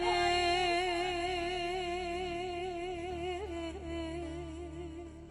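A woman's voice holding one long sung note with an even wavering vibrato, slowly fading.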